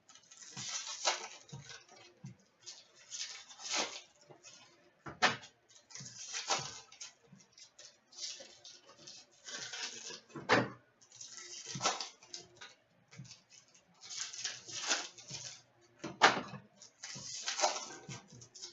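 Trading-card box and card packs being opened by hand: irregular rustling, crinkling and tearing of wrappers, with a sharp snap about every five seconds.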